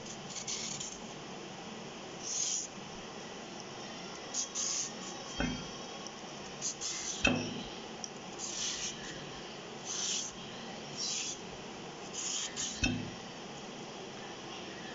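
Vegetable peeler scraping the skin off a raw green plantain in short, rasping strokes, roughly one a second, with three short knocks against the plate.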